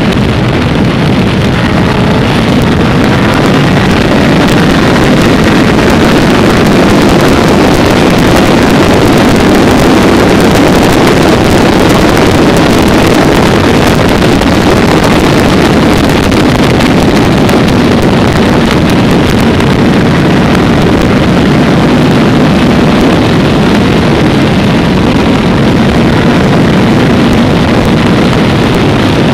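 Loud, steady rush of a vehicle travelling at speed, with wind buffeting the low-mounted camera's microphone over engine and tyre noise.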